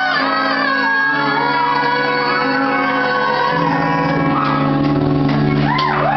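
Live duet: a woman and a man singing together over an electric guitar, with long held notes in the second half.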